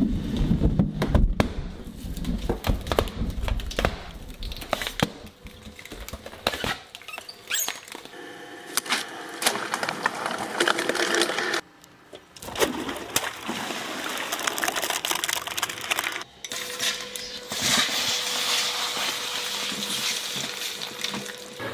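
Shredding machine's cutters running and popping balloons with sharp bangs over a low motor rumble. This gives way to a dense crackle of many small clicks, with a faint steady hum in the later part.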